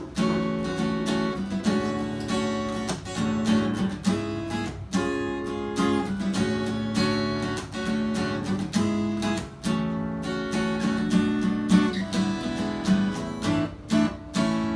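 Acoustic guitar strumming chords in a steady rhythm, the instrumental opening of a song.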